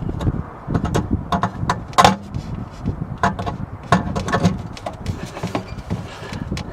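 Irregular clicks, clinks and knocks of small metal tools and parts being handled, the loudest clink about two seconds in.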